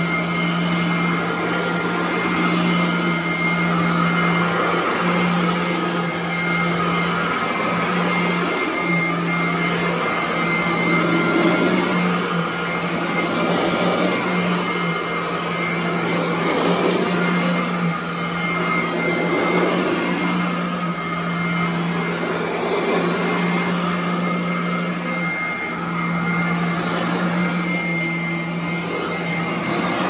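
Royal commercial upright vacuum cleaner running on carpet: a steady motor hum with a thin high whine. Its sound swells and eases every few seconds as it is pushed back and forth.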